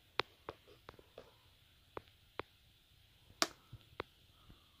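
Scattered small clicks and taps against a quiet room, about eight in under five seconds at uneven spacing, the loudest about three and a half seconds in.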